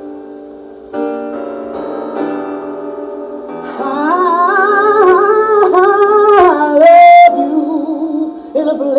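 Live piano ballad: sustained piano chords, then a singer joins about four seconds in with a long wordless melismatic run full of vibrato, ending on a brief higher note before the piano carries on alone.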